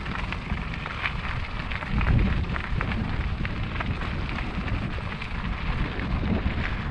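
2020 Kona Mahuna 29er mountain bike rolling over a loose gravel road: tyres crunching over stones with many scattered clicks and rattles, over a low rumble of wind on the microphone.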